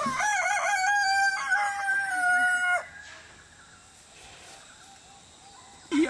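Rooster crowing once: one long call that wavers at first, then holds a steady note and cuts off sharply about three seconds in.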